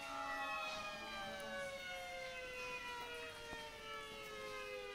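Several violins bowing long sustained notes that slide slowly downward in pitch together, a siren-like glissando.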